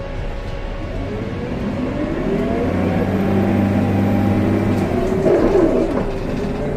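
CNG city bus pulling away, its drivetrain whine rising in pitch over a couple of seconds and then holding a steady hum. Pigeons coo from about five seconds in.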